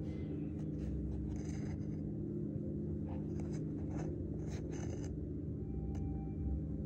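Metal spoon scraping and digging through packed cornstarch, a run of short, irregular scratchy scrapes and crunches as it scoops, over a steady low hum.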